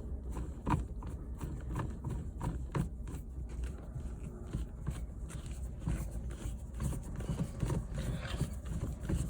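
Irregular light clicks and knocks, a few a second, from hands working the gear shifter and its new shift boot and trim.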